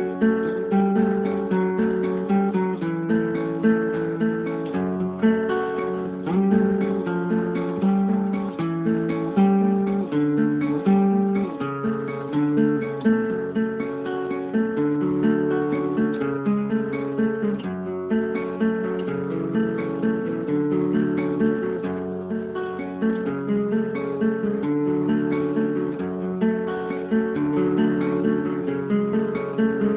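Acoustic guitar music, plucked and strummed chords changing every second or so.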